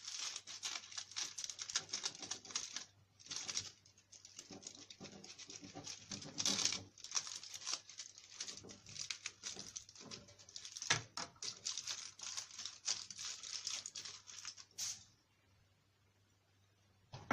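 Knife slitting a whole mackerel open along its back, a dense crackling with many sharp ticks as the blade works through skin and flesh, with the aluminium foil under the fish crinkling. It stops about fifteen seconds in.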